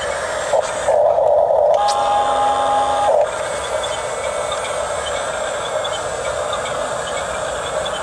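Electric gear motors and plastic gearboxes of a Huina 1569 RC bulldozer whirring steadily as it tracks forward over dirt. A louder, higher whir with a steady tone runs for about two seconds starting about a second in, while the blade is being lowered.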